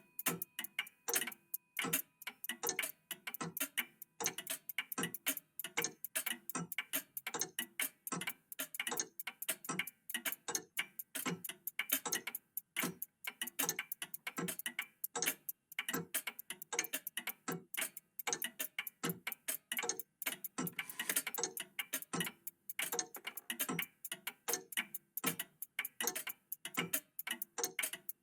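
Several old clocks, among them a vintage cuckoo clock, ticking at once, their ticks overlapping into a dense, uneven stream of several clicks a second. A faint steady tone fades out about two seconds in.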